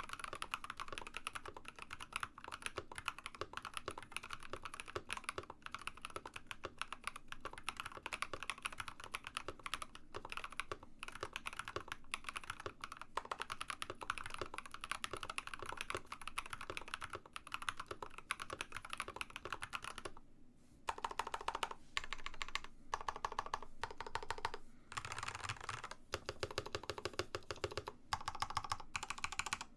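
Fast typing on a mechanical keyboard fitted with Builtbynim linear switches (long POM stem pole, nylon top housing, polycarbonate bottom housing), giving a quick run of clacky keystrokes. The typing breaks off briefly about twenty seconds in, then comes back in several quick bursts.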